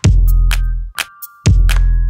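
Electronic background music: a drum-machine beat with long, deep bass notes and a thin high synth melody.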